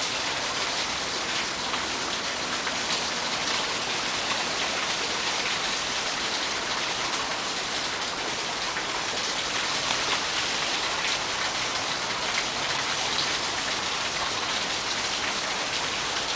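Water from a small pulser pump's supply rushing and splashing steadily, with a faint patter of drops through it.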